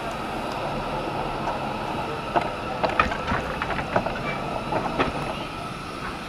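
A 1-inch-scale live steam Pacific locomotive moving off, with a steady hiss of steam and a run of sharp, uneven clicks and knocks between about two and five seconds in.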